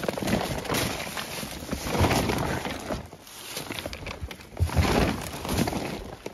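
A fabric tarp being pulled back and handled over dry leaves and grass: irregular rustling and crackling, with louder surges about two seconds in and again near five seconds, mixed with footsteps crunching in dry leaf litter.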